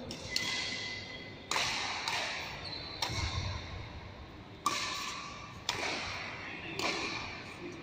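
Badminton rally: a shuttlecock struck back and forth by rackets, six sharp hits about one to one and a half seconds apart, each ringing on in the hall's echo.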